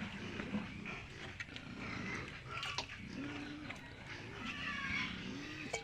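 Pigs grunting and whining, with a few short drawn-out calls.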